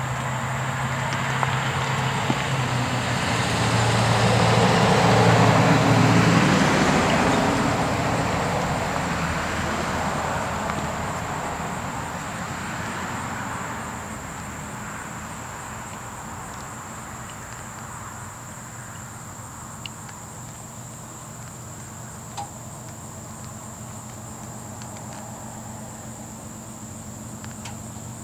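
A freight train rolling past, its rumble swelling to its loudest about five seconds in and then slowly fading as it draws away. Crickets keep up a steady high-pitched drone underneath.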